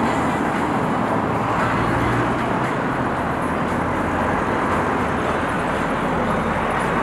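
Steady road traffic noise: a continuous rush of tyres and engines, even in level throughout.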